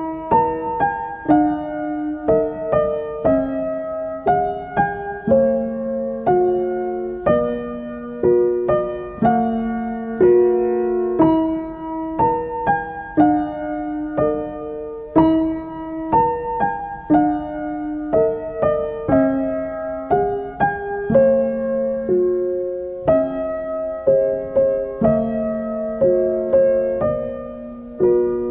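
Background piano music: a gentle melody of struck notes and chords, a new note about every half second.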